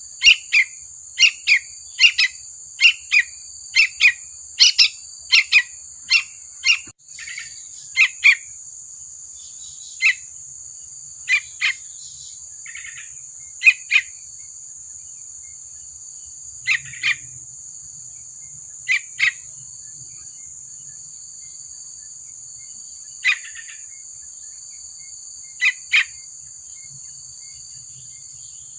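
Juvenile yellow-vented bulbul calls: short sharp chirps in a quick series, about two a second, for the first eight seconds, then scattered single and paired calls. A steady high-pitched drone runs underneath.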